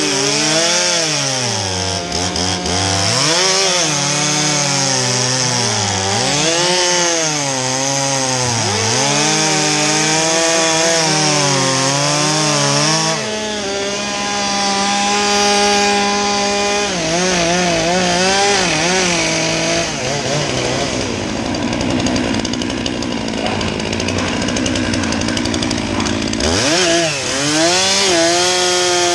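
Two-stroke Stihl chainsaw running close by, revved up and down again and again, at times held at high revs while cutting through conifer logs. Through the second half the engine's pitch blurs into a rougher, noisier sound, then it revs up and down again near the end.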